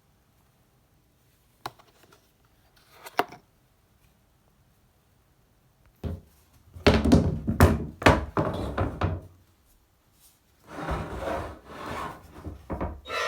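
Handling and installation work on parts: two sharp clicks, then two stretches of knocking, thumps and scraping.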